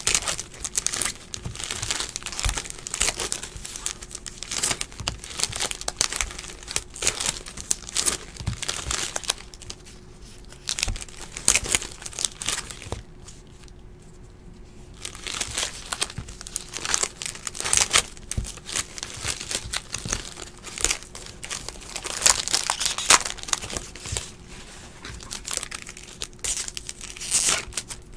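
Foil wrappers of 2016 Bowman Platinum baseball card packs crinkling and tearing as the packs are ripped open, with the cards handled in between. The crinkling eases off for a few seconds about halfway through.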